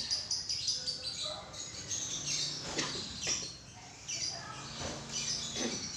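Small birds chirping rapidly in high, repeated notes, with several quick downward-sweeping calls through the middle and near the end.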